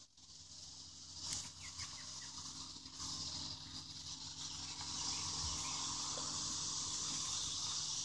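Faint outdoor ambience: a steady, high-pitched insect drone that grows a little louder about five seconds in, with a few light rustles early on.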